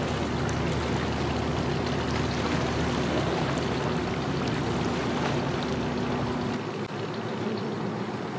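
Pickup truck engine idling with a steady low hum, then shutting off about six and a half seconds in. Water trickles and splashes underneath.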